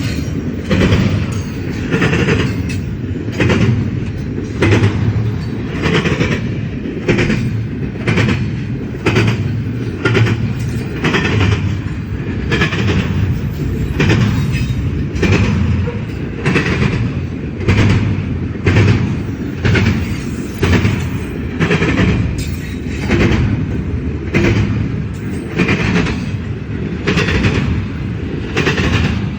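Long CSX freight train rolling past, its wheels clicking over rail joints in a steady rhythm, a little more than one click a second, over a continuous low rumble.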